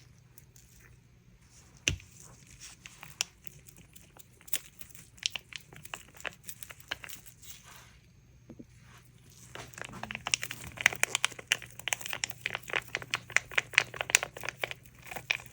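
Scattered light taps and clicks of craft supplies being handled, then from about ten seconds in a dense, fast crinkling like plastic being handled.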